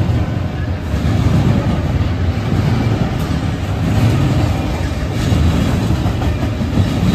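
Train rolling past close by: a steady low rumble of wheels on rail that swells and eases, with a few faint clicks.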